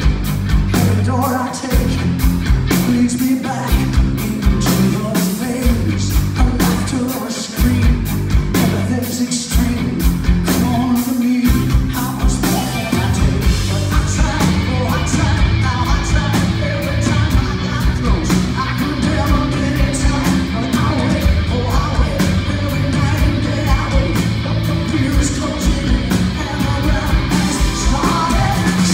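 Live rock music: a woman singing over electric guitar and drums, with a steady driving beat.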